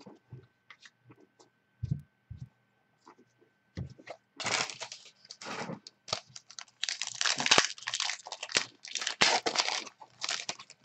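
A foil trading-card pack wrapper, a 2014-15 SPx basketball pack, being torn open and crinkled by hand. It begins with a few light ticks of cards being handled, then from about four seconds in comes loud crackling in several bursts.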